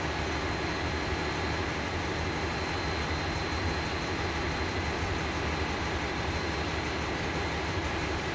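Steady drone of running machinery in a ship's engine room: a low hum with an even noise over it and a faint high whine.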